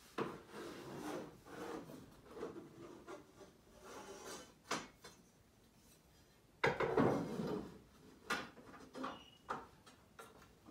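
Wooden boards of a stand being handled and shifted: irregular scraping and knocking of wood, loudest a little past halfway.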